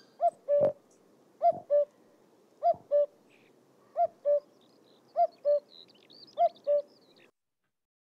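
Male common cuckoo calling its two-note 'cuck-oo', the second note lower, six times at even spacing about a second and a quarter apart, with faint songbird chirps behind. The recording cuts off suddenly near the end.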